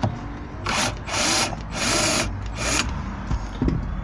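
Small cordless screwdriver running in four short bursts, backing out screws.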